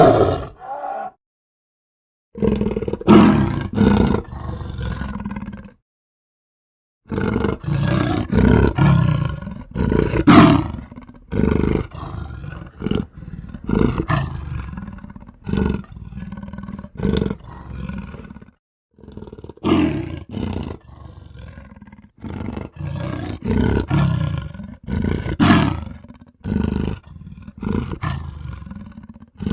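A run of animal roar and growl sound effects, played one after another with short dead-silent gaps between clips, used as the voice of a cartoon rhino character.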